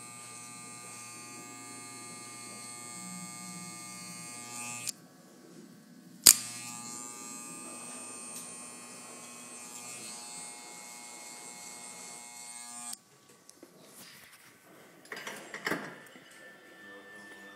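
Electric hair clippers buzzing steadily and switched off about five seconds in; a sharp, loud click a second later, then a T-blade trimmer buzzing steadily until it cuts off around thirteen seconds in. A few light knocks follow near the end.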